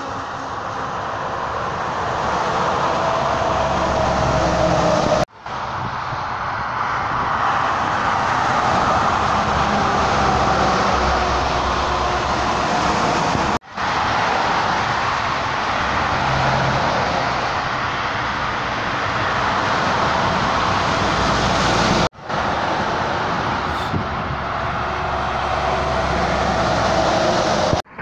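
Passing highway traffic: the steady tyre and engine noise of cars and trucks going by. It is cut off abruptly three times, each time returning at once.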